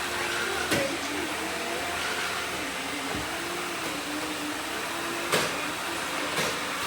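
Several robot vacuums running together, a steady motor hum with a slightly wavering whine, broken by a few sharp knocks, the loudest about five and a half seconds in.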